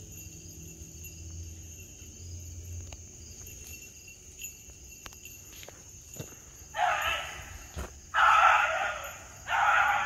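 Beagle baying on a rabbit's scent trail: three long bays about a second apart, starting about seven seconds in. Insects keep up a faint steady, high chirring throughout.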